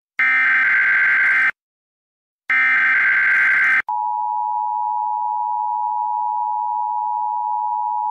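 Emergency Alert System tones: two harsh, warbling data bursts of about a second each, separated by silence, then about four seconds in the steady two-pitch attention signal begins and holds.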